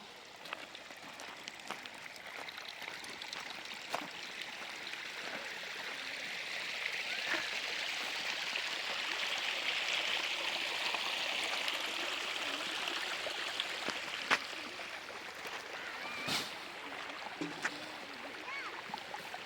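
Water running in a stream, growing louder towards the middle and then fading, with scattered small clicks.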